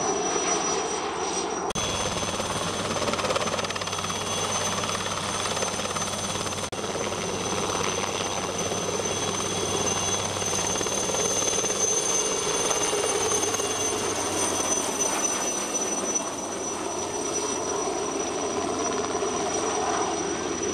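Helicopter flying low and hovering with its rotor and engine running steadily, a thin high whine on top; the sound shifts abruptly about two seconds in.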